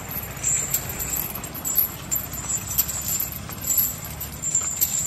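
Metal leg chains on a walking Asian elephant clinking and rattling with its steps.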